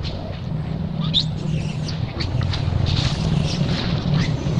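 Baby macaque giving short high-pitched cries several times, over a steady low rumble.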